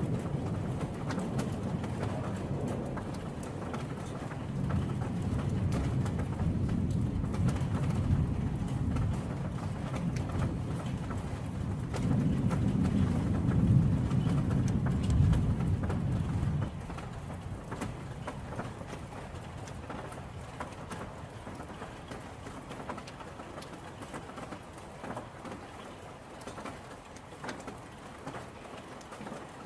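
Steady rain falling, a dense patter of drops. A low rumble lies under it for the first half and cuts off suddenly about halfway through.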